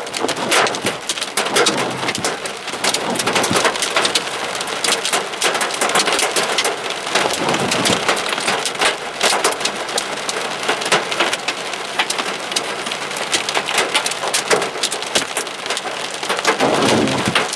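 Hail and heavy rain pelting a car, heard from its dashcam: a dense, irregular clatter of hard impacts over a steady rush of rain.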